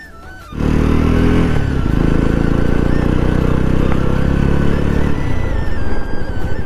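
Motorcycle engine running under steady throttle, heard from the rider's on-board camera. It starts suddenly about half a second in. Around five seconds in it eases off into a slower, uneven beat as the bike slows.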